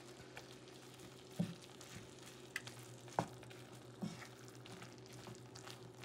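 Wooden spatula pressing injera pieces down into firfir sauce in a metal saucepan, with a faint sizzle from the hot sauce. A few soft knocks of the spatula against the pan.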